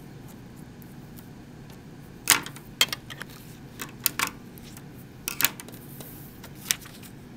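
Scattered sharp clicks and taps over quiet room tone: scissors and a sheet of paper being handled while loose threads are trimmed. The loudest two come a little over two seconds in, half a second apart.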